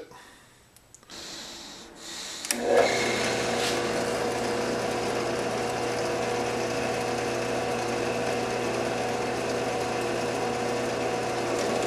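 Drill press running steadily as a 1/8-inch bit drills holes through a 1/4-inch oak blank. The steady motor whine comes in about two and a half seconds in.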